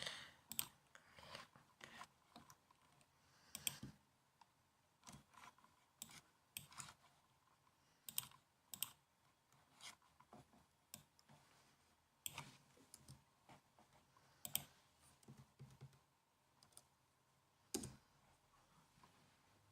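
Laptop keyboard keys tapped slowly and unevenly: single sharp key clicks and short little runs, with pauses of a second or more between them.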